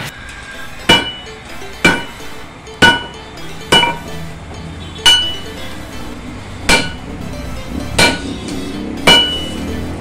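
Hammer blows on steel over an anvil while forging a knife blade: eight sharp strikes, about one a second and a little uneven, each leaving a brief metallic ring.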